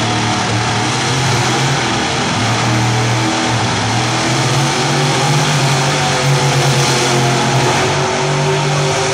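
Monster truck engines running loud and revving hard during a drag-strip burnout, the Bigfoot truck's tyres spinning in smoke before the race.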